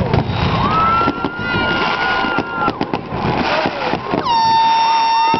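Handheld air horns sounding over crowd noise: one long steady blast from about half a second in that lasts about two seconds, then a second, lower-pitched blast from about four seconds in that is still going at the end.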